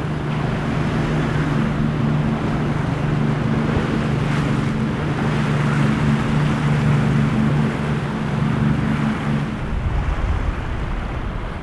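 A large flybridge sportfishing boat's engines drone steadily under power as the hull crashes through inlet chop, over a constant wash of waves, spray and wind buffeting the microphone. Near the end the engine drone stops and a low wind rumble takes over.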